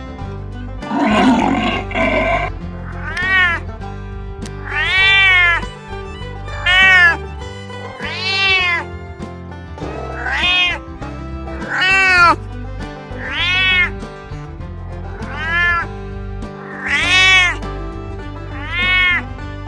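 A domestic cat meowing over and over, about ten meows roughly every second and a half to two seconds, each rising then falling in pitch, over background music with a steady low bass. A brief rough, noisy sound comes just before the meows, about a second in.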